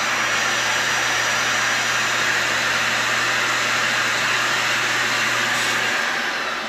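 Vacuum cleaner motor running steadily, then switched off near the end and winding down.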